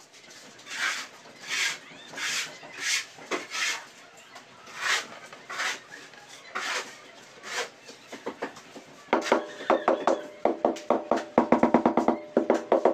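Ceramic tile being worked into a bed of wet cement mortar: short scraping strokes as it is rubbed and pressed down, then from about nine seconds in rapid knocks on the tile as it is bedded, each ringing with a short tone.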